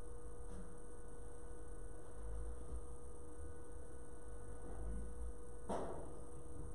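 Steady electrical mains hum with low rumble underneath, and a single sharp click about five and a half seconds in.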